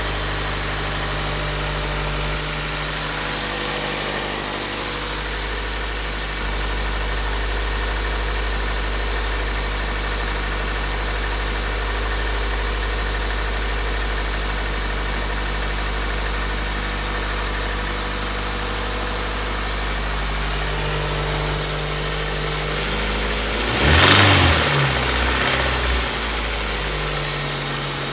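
Car engine idling steadily, with one short rev near the end. It makes a knocking noise that persists after a rod-knock repair, which the owner suspects is a bad oil pump, piston slap or bad valves.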